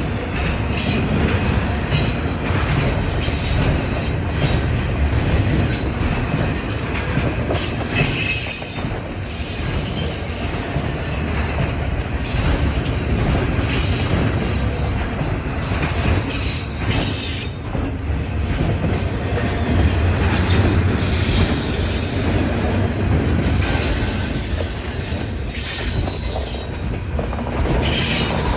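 CPKC container freight train rolling by with a steady heavy rumble of cars on the rails and a high-pitched wheel squeal that comes and goes.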